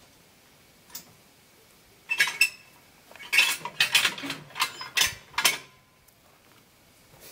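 Steel parts of a quick-attach hitch on a tractor's three-point hitch clinking and clanking as they are handled. Two sharp clinks come about two seconds in, then a quick run of clanks with a brief metallic ring over the next few seconds.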